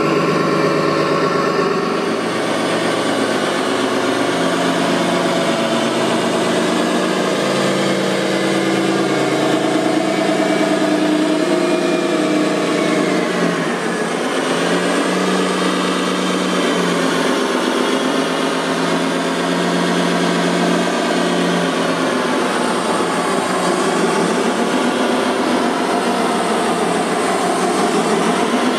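Engine-like running sound from radio-controlled construction machines: a steady idle whose pitch dips and recovers about halfway through and again near the end.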